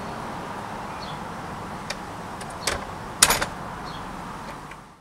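Wooden plank door being pulled shut. A few light clicks come first, then a loud clattering knock about three seconds in as the door closes against its frame.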